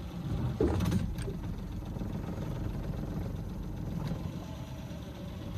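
Small Mercury outboard motor running steadily while steering the boat, with a brief sharp knock a little under a second in.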